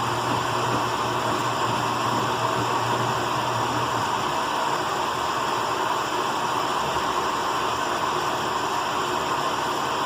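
Electrolux LE05 washing machine running, a steady rushing noise; a low hum beneath it stops about four seconds in.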